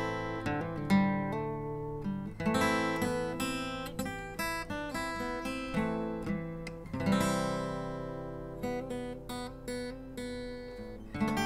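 Acoustic guitar music, with picked notes and strums that ring and fade one after another.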